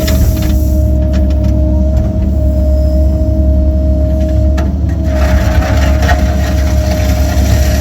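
Cat 308 mini excavator's diesel engine running steadily under a steady high whine, with a few sharp knocks about a second in and again past four and a half seconds, and a rougher rattling stretch about five to six seconds in.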